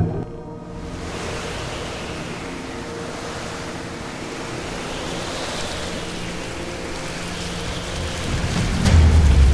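Rushing ocean surf sound effect, a steady wash of waves over a faint low hum. A deep boom comes in near the end.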